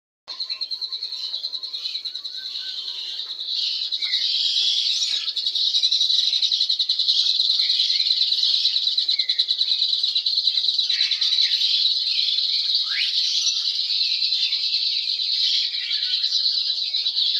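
Many small caged birds chirping and twittering at once in a dense, continuous, high chorus.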